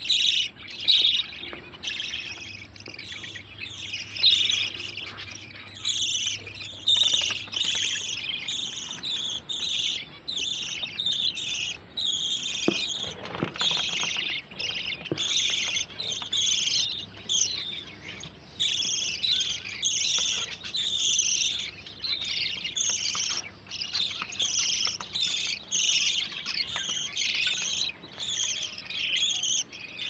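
A flock of budgerigars chattering: a dense, unbroken stream of short high chirps and warbles from many birds at once.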